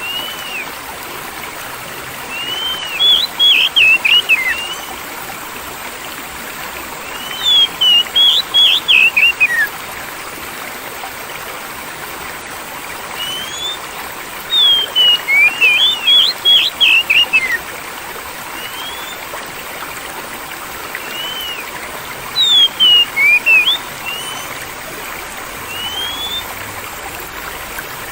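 Water flowing steadily like a stream, with a songbird breaking in four times with a phrase of quick whistled notes, each a second or two long and sliding up and down in pitch.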